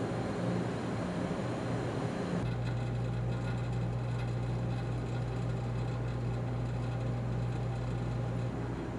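Steady low hum and rumble of a riverboat's machinery heard inside a cabin. The hum grows stronger and steadier about two and a half seconds in.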